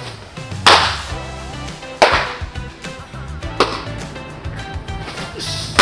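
Baseballs smacking into catchers' leather mitts during bullpen pitching: three sharp pops about a second and a half apart.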